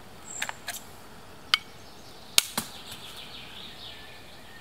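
A knife drawn from its sheath and knocked against an animal bone: a few small clicks, then three sharp knocks, the loudest about two and a half seconds in, as the bone is cracked into sharp pieces.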